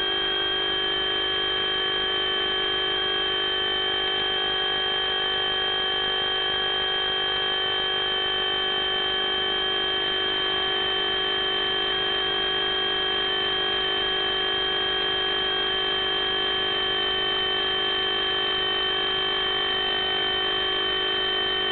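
FPV drone's electric motors and propellers giving a steady, high whine, holding a nearly constant pitch with only a slight wavering.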